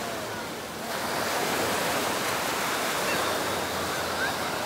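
Surf washing onto a sandy beach, a steady rush that dips briefly and swells back about a second in, with faint distant crowd voices.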